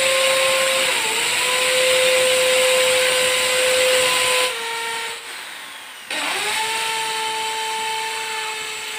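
Corded electric drill boring into a door jamb. Its motor runs steadily, dips briefly under load about a second in, stops about four and a half seconds in, and starts again a second and a half later, rising back to speed. The holes are drilled so that the recess can be chiselled out faster.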